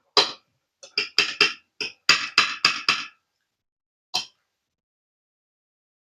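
A quick run of short, sharp clicks and knocks, about a dozen in three seconds, then a single one about a second later.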